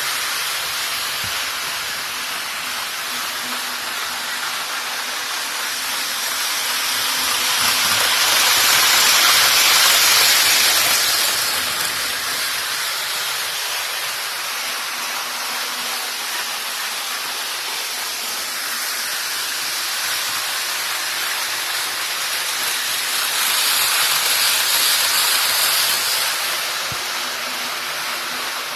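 Model trains running on a layout: a steady hissing rush of wheels and motors on the track that swells twice, about eight seconds in and again about twenty-three seconds in, as a train passes close.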